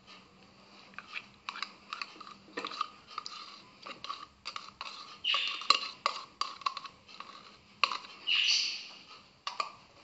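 Yogurt being scraped and tapped out of its pot into a plastic blender jug: scattered light clicks and taps, with a few short scraping sounds.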